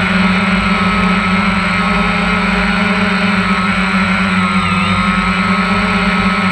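DJI Phantom 1 quadcopter's four motors and propellers buzzing steadily, heard up close from a GoPro mounted on the aircraft as it hovers and creeps low over the ground. The pitch dips slightly about halfway through.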